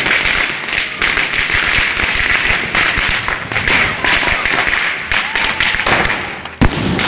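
Firecrackers going off in a fast, continuous crackling string over a steady fizzing hiss, with one sharper bang near the end.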